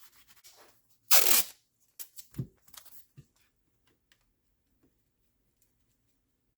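A short tearing rip about a second in, then a few light knocks and clicks of handling.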